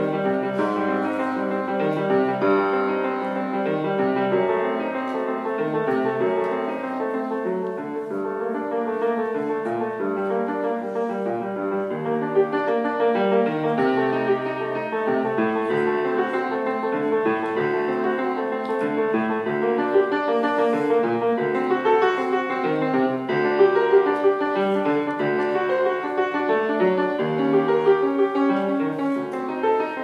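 Piano music playing continuously, with many notes in quick succession.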